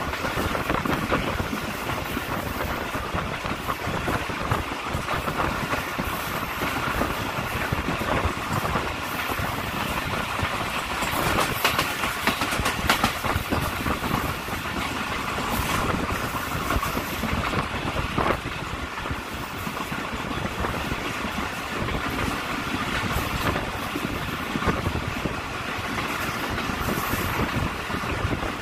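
Passenger train coach running along the track, heard from aboard: a steady rush of wheels on rails and air, with a few sharp clacks over rail joints around the middle.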